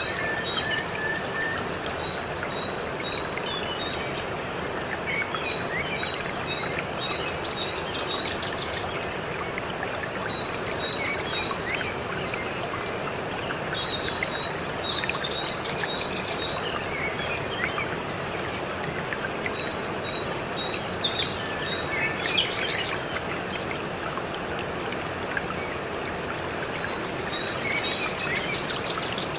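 Steady rush of a waterfall with small birds chirping over it; a fast, high trill sounds three times, each lasting about a second and a half.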